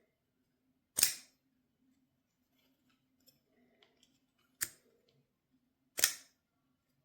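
Folding knife being handled: three sharp metallic clicks of the blade and lock, about a second in, then two more about three and a half and five seconds in.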